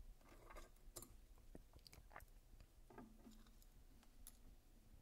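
Faint, scattered clicks and light taps of small metal folding-knife parts (handle scale and liner pieces) being handled and fitted together by hand.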